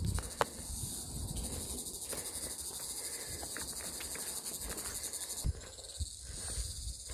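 Insects chirring in a steady, rapidly pulsing high-pitched chorus. A few low thumps sound underneath, two of them standing out near the end.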